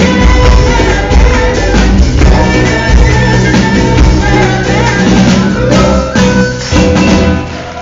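A live band playing a Kabyle song, with hand-played conga drums, strummed acoustic guitar and singing, heard loud from among the audience; the music gets quieter near the end.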